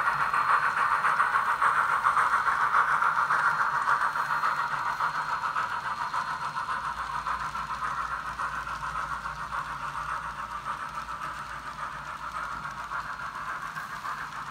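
Sound decoder in an N scale Union Pacific FEF 4-8-4 steam locomotive playing steam exhaust chuffing through its small speaker, growing fainter as the locomotive moves away while its freight cars roll past on the track.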